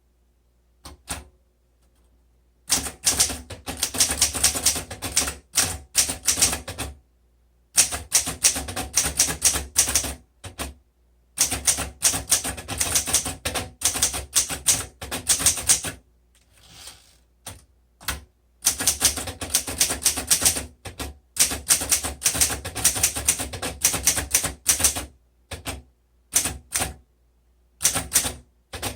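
A 1954 Underwood Quiet Deluxe manual portable typewriter being typed on. There are several runs of rapid keystrokes, each a few seconds long, with short pauses between them.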